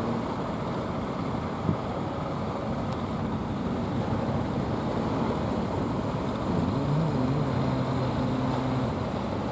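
Engines of wooden outrigger fishing boats running as they motor in, over a steady wash of surf and wind. A boat's engine hum comes through more clearly about two-thirds of the way in for a couple of seconds.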